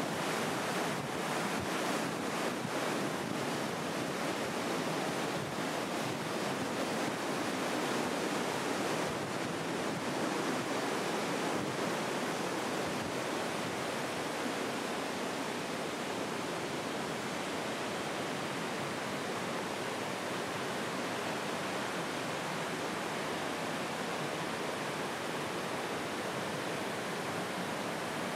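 Steady rushing of flowing water, an even unbroken hiss.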